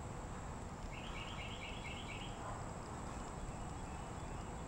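A bird calls a quick run of about six short chirps, about four a second, over a faint steady background noise.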